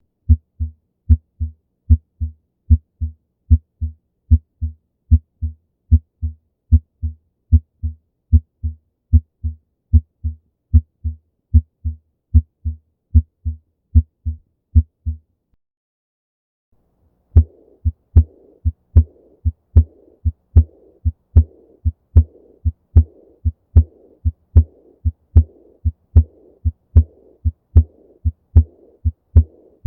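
Heart sounds heard by auscultation: a steady, regular lub-dub with clean silence between the beats. After a pause of about two seconds the beat resumes with a soft blowing murmur filling the gap after each beat. This is the murmur of aortic regurgitation, blood leaking back through an aortic valve that fails to close.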